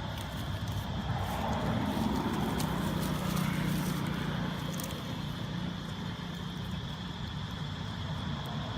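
Low engine drone that grows louder two to four seconds in, then eases off.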